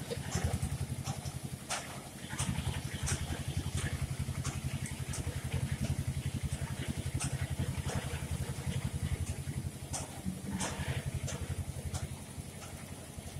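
An engine idling steadily with a low, even throb, with short, high ticks scattered over it.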